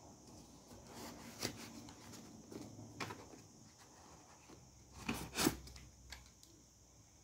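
Handling noise of a handheld gimbal being worked out of its moulded foam packaging tray: scattered rubs and small knocks of plastic against foam, with a louder cluster of rubbing about five seconds in as it is lifted clear.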